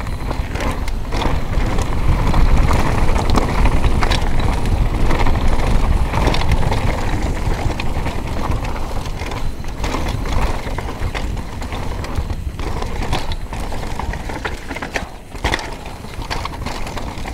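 Scott mountain bike descending a dirt and gravel trail at speed: knobby tyres rolling over the ground with many small clicks and knocks from the bike over bumps and stones, over a steady low rumble of rushing air.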